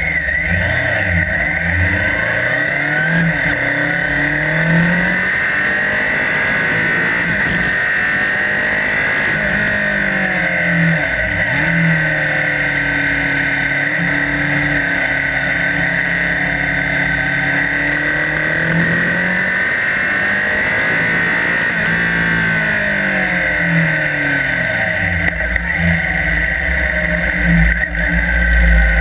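Police motorcycle engine running through a riding course, its pitch rising and falling over and over as the rider speeds up and slows down, with a steady high whine throughout.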